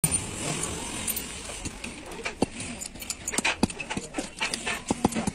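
Irregular metallic clicks and taps of a screwdriver and a bent steel rod working against the metal end housing of a dismantled truck generator.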